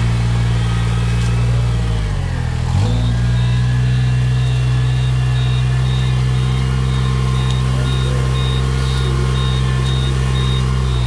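Rice transplanter's engine running steadily under load, its pitch sagging briefly about two seconds in and then picking back up.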